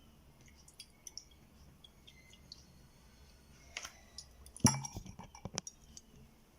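Kitchenware clicking and clinking against a jug, as a utensil is worked in the syrup. A louder knock with a short rattle comes about two thirds of the way through, followed by a few more sharp clinks.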